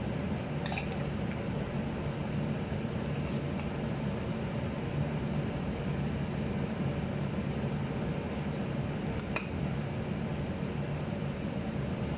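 A metal spoon clinking lightly against a salad bowl twice, once about a second in and again near the end, over a steady low hum.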